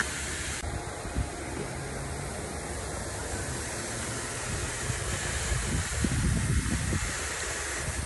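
Steady rushing noise on a ski slope, with low rumbling that gets louder over the last few seconds.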